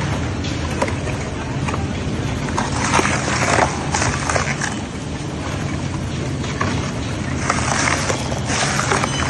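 Twin-shaft tyre shredder running: a steady low drone from the drive, with crunching and tearing as the slow-turning intermeshing cutter shafts chew tyre rubber into pieces, loudest about three seconds in and again near the end.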